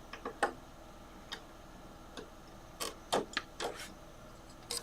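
Scattered sharp plastic clicks and taps from handling a 140 mm computer case fan and its connector while setting it up, about ten of them at uneven intervals, over a faint steady hum.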